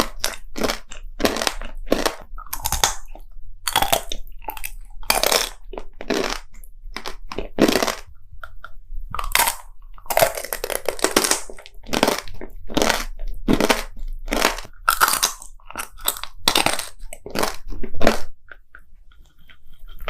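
Close-miked crunching and chewing of gummy tanghulu: the hard candied-sugar shell cracking between the teeth in quick, irregular crackles, with the chewy gummy inside.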